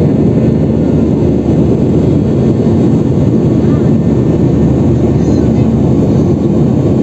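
Jet airliner heard from inside the passenger cabin: the Flybondi Boeing 737-800's engines and airflow make a loud, steady rumble.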